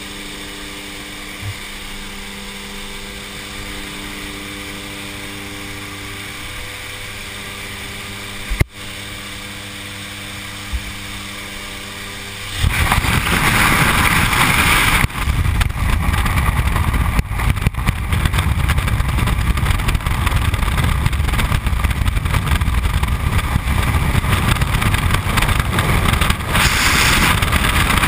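Steady engine drone of a jump plane heard inside the cabin, with several low steady tones. About twelve and a half seconds in it gives way suddenly to loud freefall wind rushing over a helmet-mounted camera's microphone.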